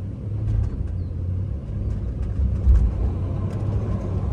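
2005 Nissan Armada's 5.6-litre V8 running as the truck tries to crawl up the slip-test slope in auto four-wheel-drive mode, a steady low rumble that swells about two and a half seconds in, with a few faint clicks over it.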